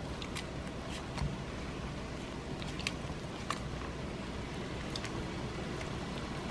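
Gloved hands kneading and mixing a wet batter of grated cassava and coconut cream in a stainless steel bowl: scattered short clicks and taps over a steady low hiss.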